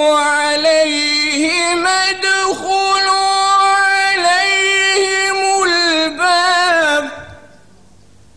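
A man chanting Quran recitation in Arabic in the melodic tajwid style, holding long, ornamented notes with slow turns of pitch. The phrase ends about seven seconds in, leaving quiet room tone.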